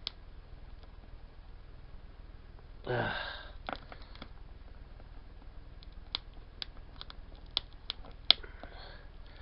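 Packaging being worked open by hand: a brief rustling scrape, then a run of sharp clicks, about two a second, near the end.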